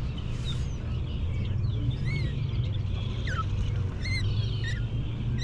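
Several birds chirping and giving short sweeping whistles again and again, over a steady low rumble.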